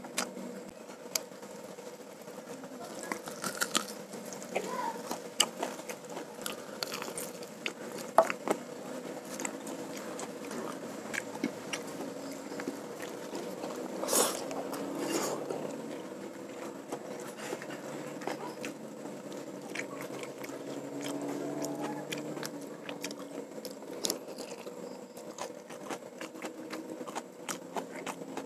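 A person chewing a mouthful of rice, fried chicken and fried noodles eaten by hand, close to a clip-on microphone, with many short wet smacks and clicks from the mouth and fingers.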